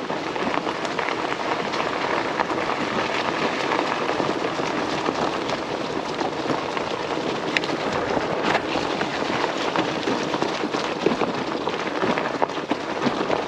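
Fat-tire e-bike's 4-inch tyres rolling downhill over a wet, leaf-covered dirt trail: a steady hiss with many small crackles and clicks.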